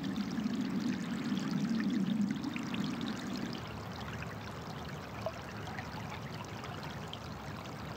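Snowmelt water running over flattened grass under a snow bank: a steady flowing sound. About three and a half seconds in it drops to a quieter, even wash of water.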